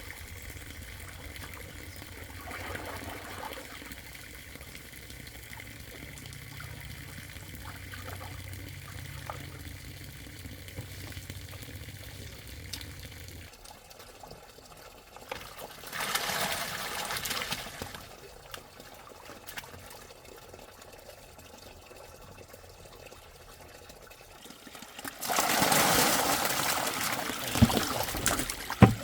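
Water splashing and pouring, in two loud spells: a short one about halfway through and a longer, louder one near the end. A low steady hum runs underneath for the first half and then stops.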